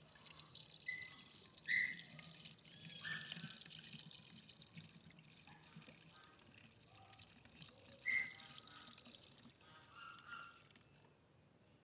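Coolant being poured from a jug into a plastic coolant expansion reservoir: a faint trickle with a few short gurgles, refilling the cooling system. The pouring stops about a second before the end.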